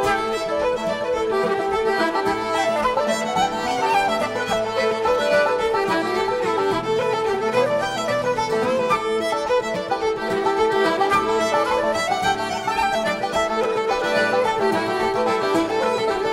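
A string band playing an Irish/old-time instrumental tune, with fiddles carrying the melody over five-string banjo, acoustic guitar and upright bass.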